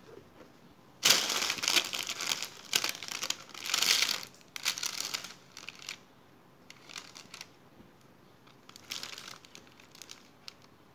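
Fabric rustling and crinkling as a thick towel is handled and laid over a cake pan, in loud bursts for the first few seconds, then a couple of shorter ones.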